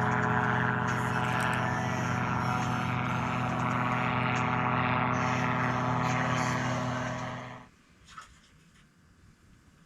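A motor running steadily at a constant pitch, then cutting off abruptly about three-quarters of the way through, leaving only faint background noise.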